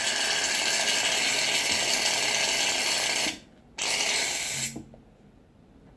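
Aerosol can of shaving cream spraying foam: a long, steady hiss that stops about three seconds in, then a second, shorter spray about half a second later.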